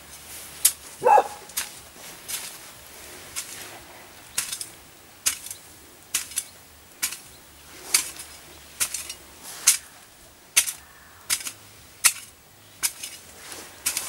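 Garden hoe chopping into turfy soil, one short sharp strike about every second, steady and rhythmic. A brief high yelp-like call about a second in.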